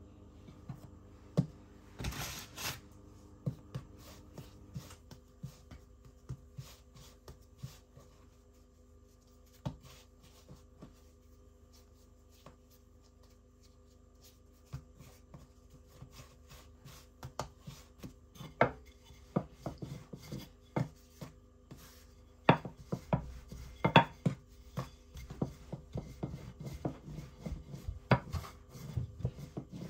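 Kitchen handling noises: irregular taps, knocks and scraping of utensils and dishes on a work surface, sparse at first and busier in the second half. A faint steady hum runs underneath.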